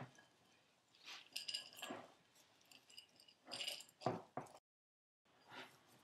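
Hands mixing pieces of Mexican chocolate into cookie dough: faint squishing and rustling in short bursts, with a couple of soft knocks about four seconds in. The sound drops out completely for about half a second shortly after.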